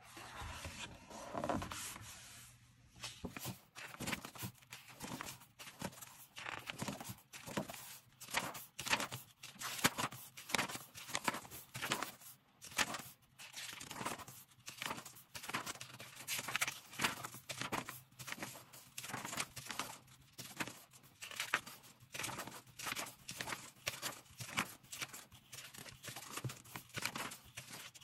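Paper pages of a sticker activity pad being turned one after another: a longer rustle at first, then crisp page rustles and snaps at about two a second.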